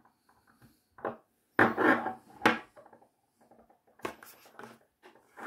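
Small glass perfume bottle and its metal cap handled on a table: scattered light clicks and knocks, loudest a pair of sharp clacks between about a second and a half and two and a half seconds in.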